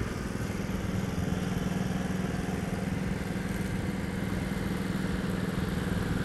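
Small engine on an inflatable pontoon boat running steadily, a constant low hum.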